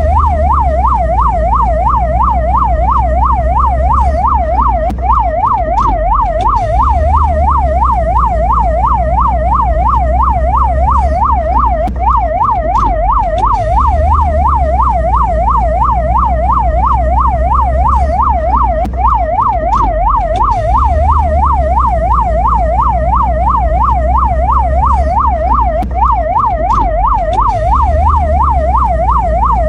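Mexican ambulance electronic siren sounding a fast yelp, its pitch rising and falling about three times a second without a break, over a low rumble.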